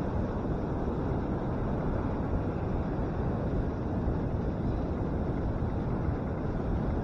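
Steady, rumbling wind noise buffeting the microphone of a handlebar-mounted camera.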